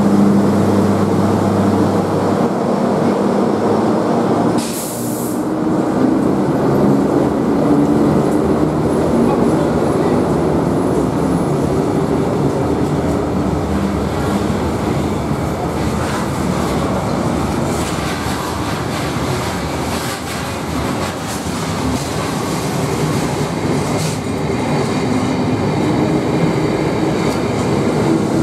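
Locomotive-hauled passenger train pulling out and rolling past a platform in an underground station, with continuous wheel and running noise. A steady low tone from the locomotive is heard in the first two seconds, and there is a short high hiss about five seconds in.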